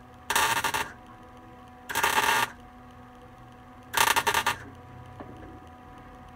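Wire-feed welder laying three short tack welds on sheet-metal floor pan, each a crackling burst of about half a second, roughly two seconds apart.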